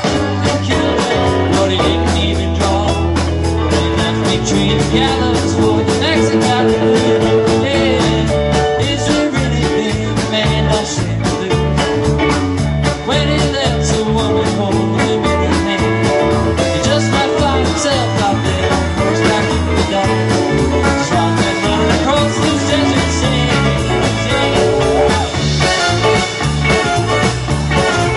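Rock band playing a country-rock song with electric guitar, bass and drum kit, the drums keeping a steady beat throughout.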